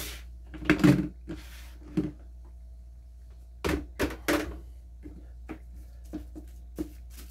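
Clear plastic storage tub (a monotub) being handled and set down on a steel counter: a string of hollow plastic knocks and thunks, three sharp ones close together midway, then lighter clicks from its latch handles.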